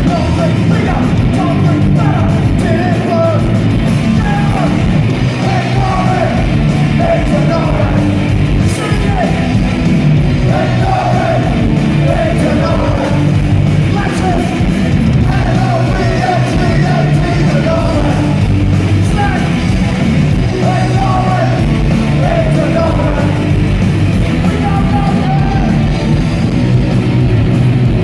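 Loud rock music with a shouted, yelled vocal over distorted guitars and a steady low bass.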